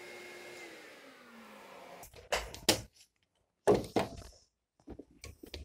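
A power-tool motor humming steadily, then winding down with a falling pitch as it is switched off after edge routing. Then several sharp knocks and clatters as bar clamps are released and handled on the panel.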